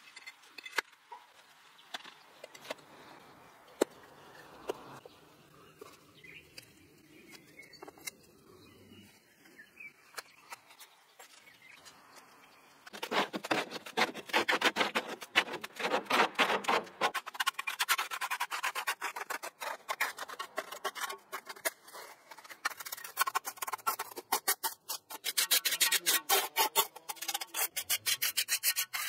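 Bricks being set into wet mortar with faint scattered knocks for the first dozen seconds. Then wet concrete is tipped from a wheelbarrow and a steel trowel scrapes and spreads it in quick, dense strokes, much louder, to the end.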